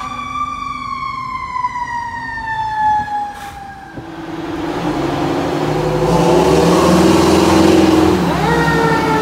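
Fire engine siren on a falling tone as the truck passes. Then comes a loud, low, steady sound from the ladder truck pulling out of its bay, and near the end a siren starting to wind up.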